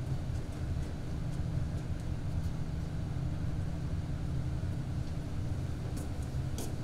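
Steady low rumbling hum of the room's background noise, with a few faint taps near the end.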